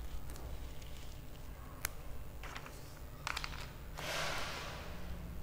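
Paper word cards being handled and pressed onto a whiteboard: a few light, sharp taps in the middle, then a brief rustling swish of paper about four seconds in.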